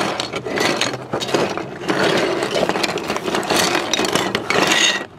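Plastic Mega Bloks building bricks rattling and clattering as they are tipped out of the cardboard box onto a table, with the box and plastic bags rustling. The clatter stops abruptly near the end.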